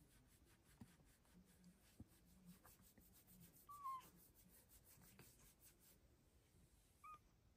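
Silver Bengal cat giving two soft, short chirps: one about four seconds in that dips slightly in pitch, and a briefer one near the end. Faint rustling of a hand stroking its fur lies underneath.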